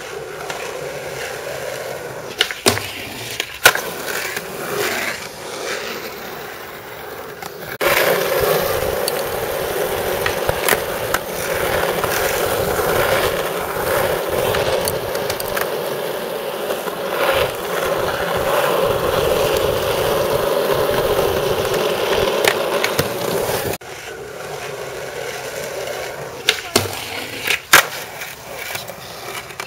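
Skateboard wheels rolling on concrete and asphalt, with sharp clacks of the board popping, flipping and landing. The rolling turns louder and steady for a long stretch in the middle.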